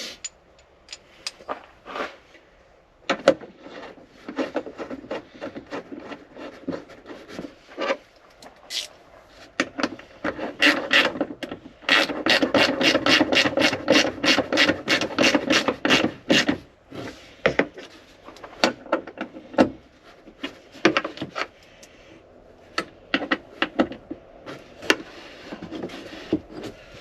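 Hand tool work on hardtop fasteners: scattered clicks, knocks and rubbing, with a few seconds of rapid, evenly spaced clicking midway like a ratchet wrench being worked.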